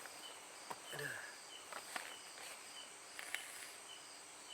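Night insects chirping: a short, high chirp repeats at an even pace, two or three times a second, over a steady high-pitched drone. A few faint clicks sound in the middle of it.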